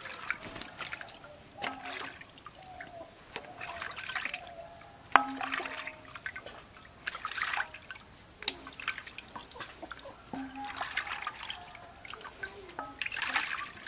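Water trickling and splashing in short bursts every second or two.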